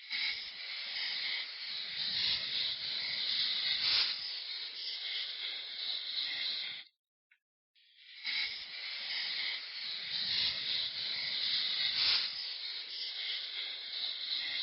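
A steady hiss lasting about seven seconds, with a short click partway through; it stops, and after about a second's gap the same hiss plays again.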